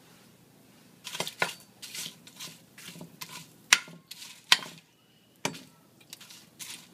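Dried chiles de árbol being stirred in a dry nonstick frying pan: an irregular run of utensil scrapes and light knocks against the pan, starting about a second in. Two sharper knocks come near the middle.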